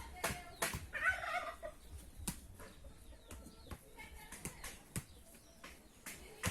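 Farmyard poultry calling: a call about a second in, then softer short calls, over repeated sharp taps.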